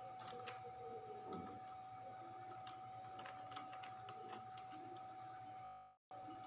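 Faint background noise of the recording: a steady electrical whine and low hum under a light hiss, with scattered light clicks. The sound cuts out completely for a moment near the end.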